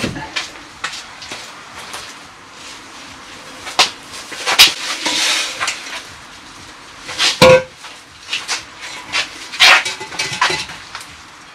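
Scattered knocks and metal clanks from heavy, rusty steel beams being handled and loaded into a van, with a scrape about five seconds in and one loud clank that rings briefly about seven and a half seconds in.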